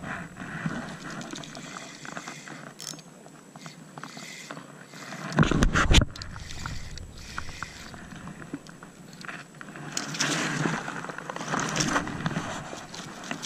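Irregular rustling and scraping handling noise, with one loud, deep bump about five and a half seconds in and a longer stretch of scraping near the end.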